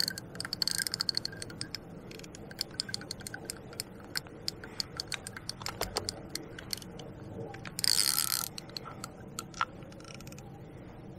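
Fishing reel clicking irregularly as a hooked fish is played and line is wound in, with a brief louder burst of ratcheting about eight seconds in.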